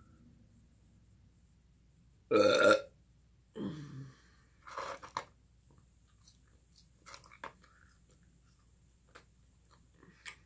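A loud, short burp about two seconds in, followed by two shorter, quieter sounds, then faint scattered clicks.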